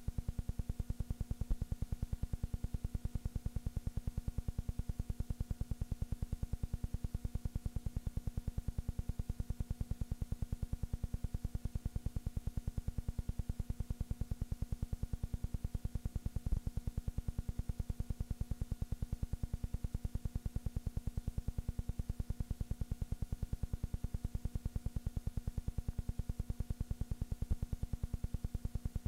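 A steady low buzz pulsing rapidly and evenly, with a faint hum of steady tones over it. It does not change at all.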